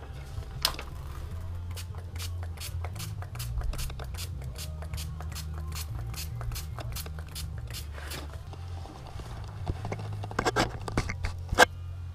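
Plastic grip film rustling and scraping as it is handled, then a hand pump spray bottle squirting water several times in quick succession near the end.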